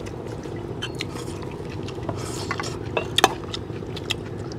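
Spoons and chopsticks clinking and tapping against bowls while people eat, with a few sharper clinks about three seconds in, over a steady low hum.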